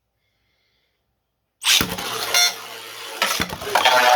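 Beyblade battle launch: about a second and a half in, a sudden loud burst as the 3D-printed tops are launched into the stadium. The tops then keep whirring and clattering against each other and the stadium walls.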